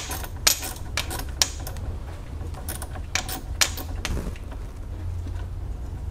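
Hand ratchet with a Torx 25 bit clicking in short, irregular strokes as it backs out the screw holding a coolant hose to the radiator. The clicks come about every half second and thin out about four seconds in.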